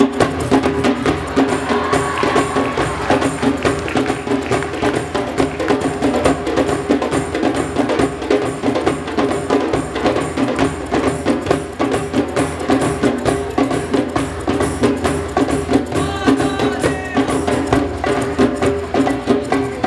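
Hand-drum ensemble of djembes, congas and timbales playing a dense, driving rhythm of many quick strokes.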